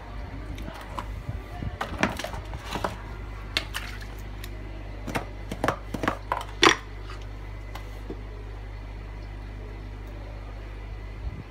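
A metal blade scraping and knocking against a horseshoe crab's shell as the roe is scooped out: a run of short scrapes and clicks, the loudest a sharp knock about seven seconds in. After that only a steady low hum is left.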